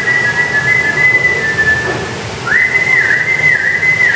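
A trainer's whistle calling a trained bird down to land on an outstretched hand. It comes as two long, high held whistles: the first ends about two seconds in, and the second starts soon after and wavers up and down in the middle.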